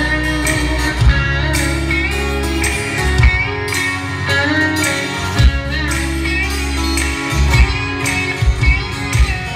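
Live rock band playing loud through the amplification: electric guitar over sustained bass and regular drum hits, heard from within the audience.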